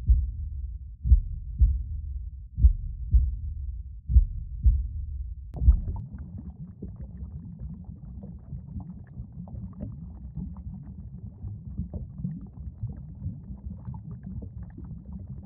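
Heartbeat sound effect: pairs of low thumps repeating about every second and a half. About five and a half seconds in, it gives way to a muffled low underwater rumble with faint bubbling, the sound of sinking and nearly drowning.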